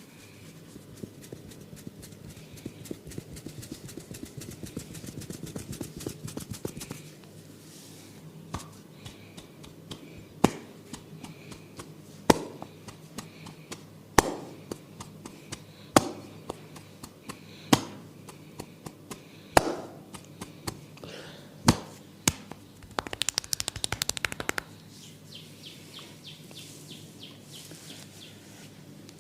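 Percussive hand massage on the head and upper body. It opens with a few seconds of fast tapping, then seven sharp smacks of the hands, evenly spaced a little under two seconds apart, then a quick flurry of tapping.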